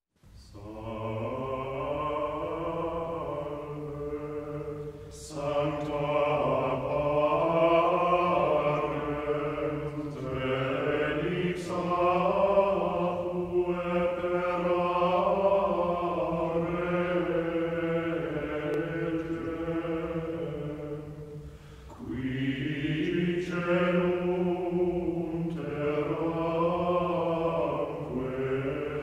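Soundtrack music of sustained, chant-like tones over a steady low drone, the pitches shifting slowly. It dips briefly about five seconds in and again near twenty-two seconds, then swells back.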